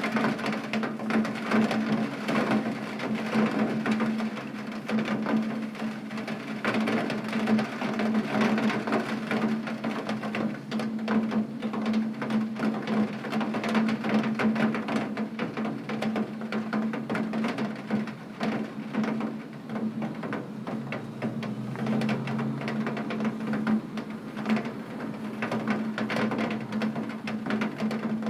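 Heavy rain beating on a window pane: a dense, uneven patter of drops with a steady low hum underneath.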